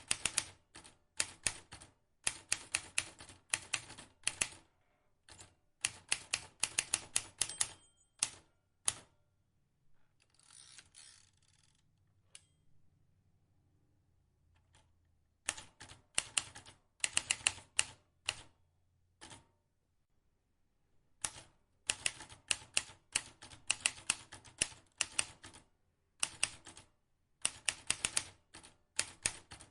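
Vintage manual typewriter being typed on: quick runs of sharp key strikes in bursts, broken by short pauses, with a softer rasping sound about ten seconds in.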